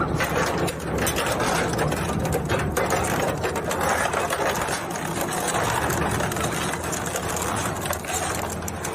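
Plastic shredder running, its motor droning steadily under dense, continuous crackling and clattering as it chews up plastic.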